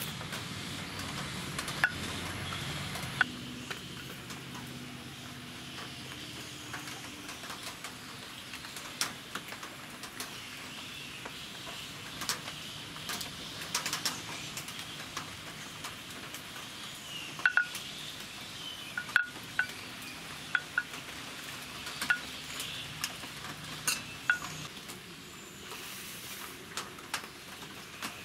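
Wooden rolling pin working puri dough on a flat board, with scattered sharp knocks and clinks of the pin and steel dishes being handled, more frequent in the second half.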